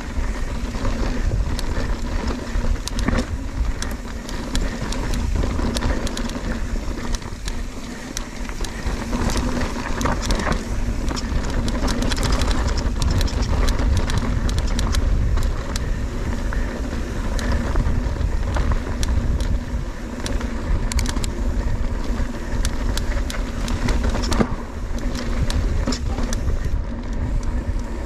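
Mountain bike descending a rough dirt trail at speed: wind buffeting the microphone, with constant clatter and rattling from tyres and frame over rocks and roots.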